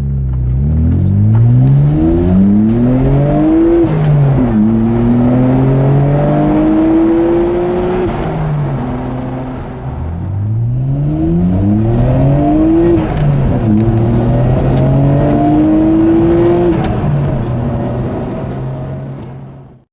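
Nissan Skyline GT-R's RB26DETT 2.6-litre twin-turbo straight-six with a Blitz NÜR-Spec catback and test pipe, heard from inside the cabin during two full-throttle acceleration pulls. Each pull rises in pitch, drops sharply at a gear change, climbs again and then falls away as the throttle is lifted. A faint high whine runs above the engine note while it pulls.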